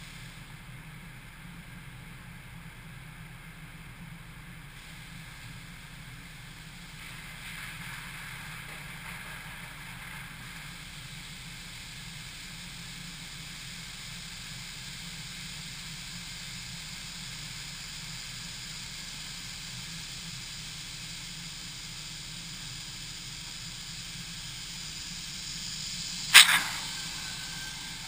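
High-pressure water spray of a touchless car wash, a steady hiss over the car's roof and the roof-mounted camera, growing a little louder about a quarter of the way in. A single sharp, loud knock near the end.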